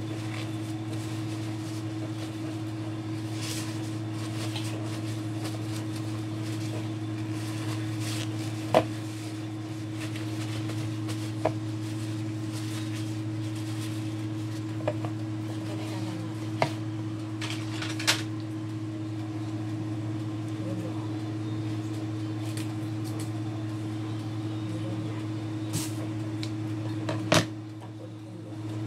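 Paper towels rustling and light knocks and clicks as a raw whole chicken is patted dry by hand over a plastic colander, over a steady low hum. The sharpest knocks come about nine seconds in and just before the end.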